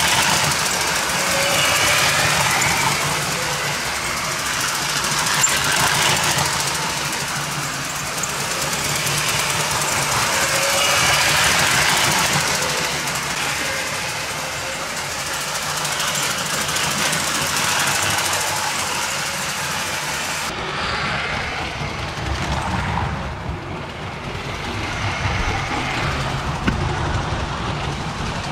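LEGO 12-volt electric train (set 7740) running on its track: motor hum and wheels clattering over the rails, swelling and fading in loudness. The sound turns duller about two-thirds of the way through.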